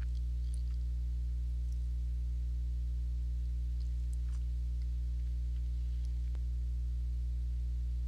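Steady low electrical hum, several held tones stacked together, with a few faint light ticks.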